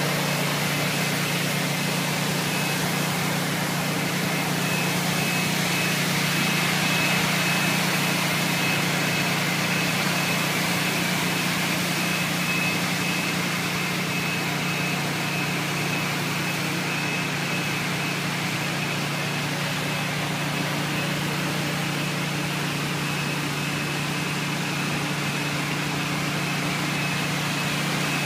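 Walk-behind floor scrubber running steadily as it scrubs concrete-cutting slurry off the slab: a constant motor drone with a thin high whine over a rushing hiss.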